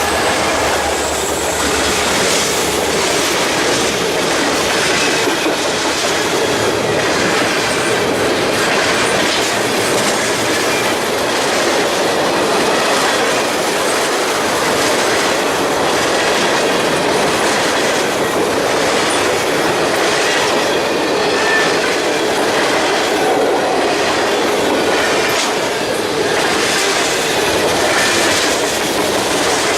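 A train's railroad cars rolling past on the track: a loud, steady rush of wheel and rail noise, with faint high wheel squeal at moments.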